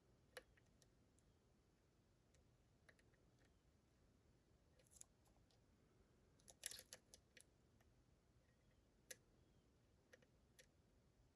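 Faint, scattered clicks of a lock pick and tension wrench working the pins of a DORMA DC500 pin-tumbler lock, with a quick run of clicks about seven seconds in.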